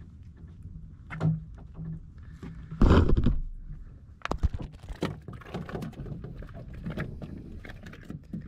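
Knocks, clicks and rattles of a fish and fishing tackle being handled on a small wooden boat's deck, with one loud thump about three seconds in and a run of quick taps after it.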